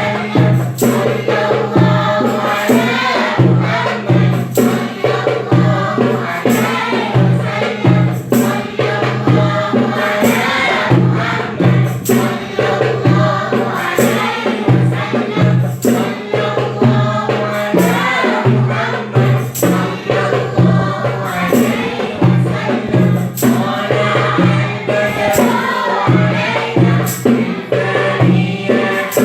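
A group of voices sings an Arabic nasheed in chorus over a steady, regular beat of hand percussion with tambourine jingles.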